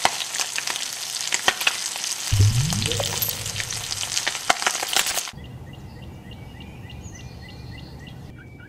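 Meat searing in hot oil in a frying pan: a loud, steady sizzle full of crackles and pops for about five seconds, with a rising tone sweeping upward partway through. It then cuts off suddenly to a quieter outdoor background where a bird chirps in a quick, regular series.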